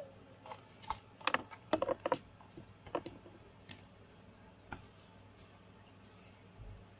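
Close handling noise: a quick run of small clicks and taps in the first three seconds, then a few scattered ones and a soft low thump near the end.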